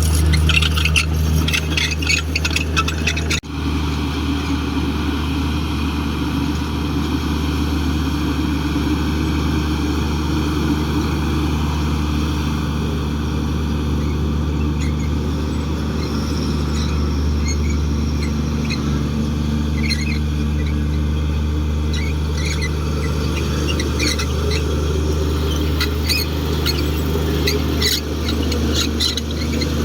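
Komatsu D58 bulldozer's diesel engine running steadily under load, with scattered short high squeals. The drone breaks off for an instant about three seconds in.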